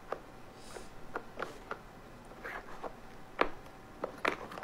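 A cat pawing at a plastic treat-puzzle feeder: irregular light clicks and taps as the plastic pieces knock and slide, about a dozen in all, the sharpest about three and a half seconds in.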